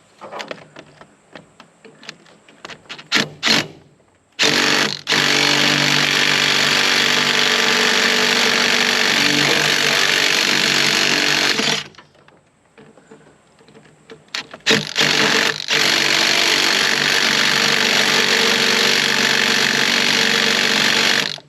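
Impact wrench hammering on stubborn fan bolts in two long runs of about seven seconds each, with metal clanks of the socket and extension between them.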